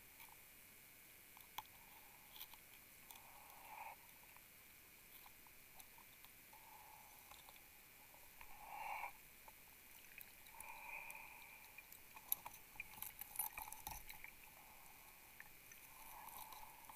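Near silence underwater: faint muffled swishes and a few soft clicks, slightly louder for a moment about nine seconds in.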